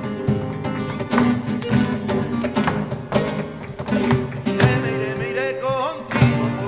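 Flamenco music: acoustic guitar playing with sharp percussive strikes throughout, and a few sliding notes near the end.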